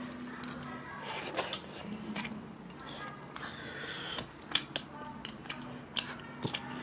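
Wet chewing and lip-smacking of people eating rice and meat curry by hand. It comes as an irregular run of sharp clicks and smacks.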